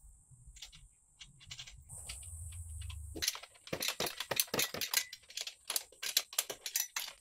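A ratchet clicking in quick, uneven strokes as nuts are run onto the studs of an exhaust pipe joint flange. The clicking starts about three seconds in, after a few light metallic clinks.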